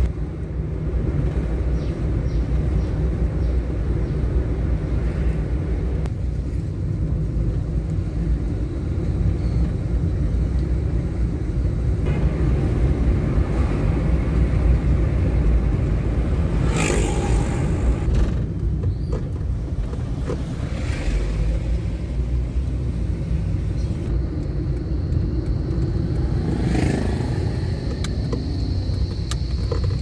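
Nissan March (Micra) hatchback driving in traffic: steady low engine and tyre rumble, with a couple of louder swells as other traffic passes. A thin high whine appears in the last few seconds.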